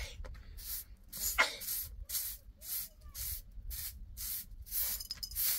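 Short straw hand broom sweeping a dusty earth floor, with brisk strokes about two a second.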